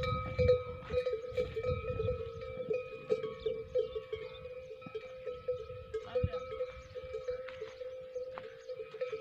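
Bells on a string of walking camels clanking and ringing, struck irregularly with every step so the tone never dies away. A low rumble fades out over the first couple of seconds.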